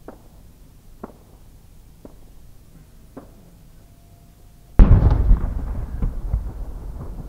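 A 10-inch (shaku-dama) aerial firework shell bursting with one loud boom nearly five seconds in, followed by long rolling echoes. Before the burst there are only faint pops about once a second while the shell climbs on its tail.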